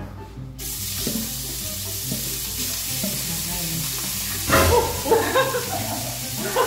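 Raw ground beef dropped into a hot frying pan, starting to sizzle abruptly about half a second in and then frying with a steady hiss. A brief louder vocal outburst, a laugh, comes about four and a half seconds in.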